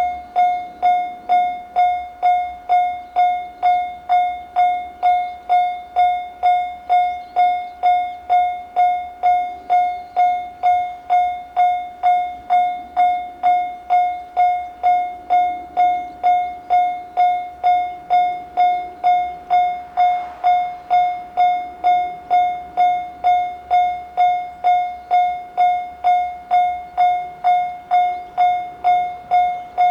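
Japanese level-crossing warning alarm, the JR standard single-tone electronic bell, repeating one note a little under twice a second. Each strike rings briefly and decays before the next.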